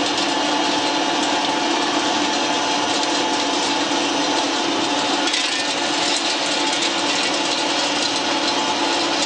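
YMKJ350 flat die wood pellet mill running steadily under load, pressing sawdust through the die, with freshly formed wood pellets dropping from the discharge chute.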